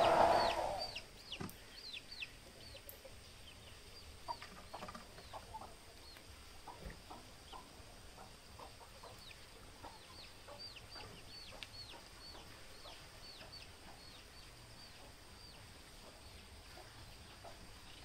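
Quiet outdoor ambience of chickens clucking and small birds chirping: short, high falling chirps repeat throughout, with soft lower clucks in between.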